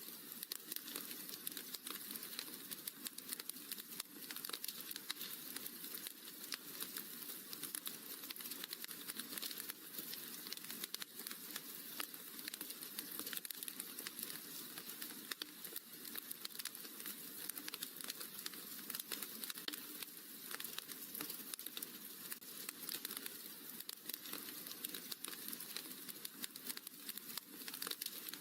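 Wood fire crackling in a fireplace: a dense, steady stream of small pops and snaps over a soft hiss.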